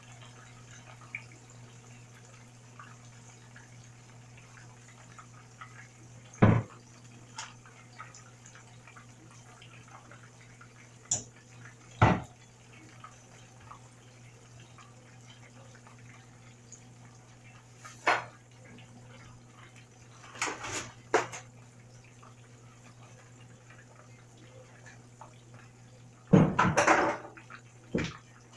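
Salmon fillet shallow-frying in hot oil in a pan, a steady sizzle and bubbling, broken by a few sharp knocks and pops, the loudest cluster near the end.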